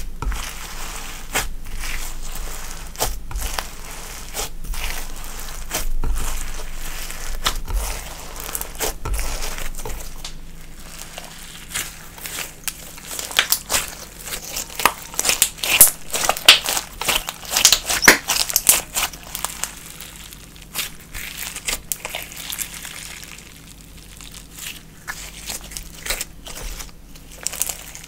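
Slime being mixed and squished, giving a run of sticky crackling and popping clicks. The clicks come thickest and loudest about halfway through, then thin out.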